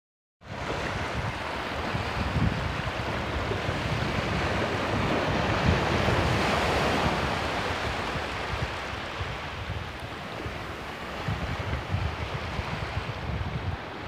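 Small surf breaking and washing up over a sandy beach in a steady hiss that swells to its loudest about halfway through. Wind buffets the microphone in low gusts, most of all near the end.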